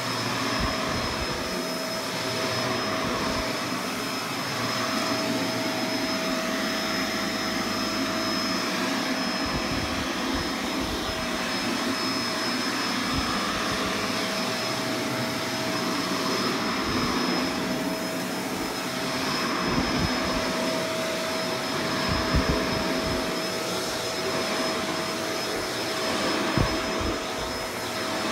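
Vacuum cleaner running steadily on carpet, a motor whine with a steady mid tone and a high tone. Scattered low bumps come as it is pushed around, heaviest near the end.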